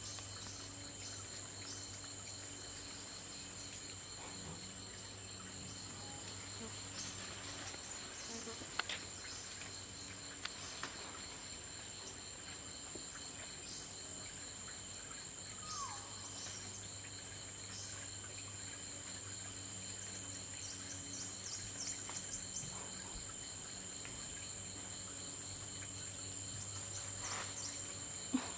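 Chorus of rainforest insects: a continuous high-pitched buzz with a pulsing trill beneath it, a few faint clicks, and one short falling chirp about halfway through.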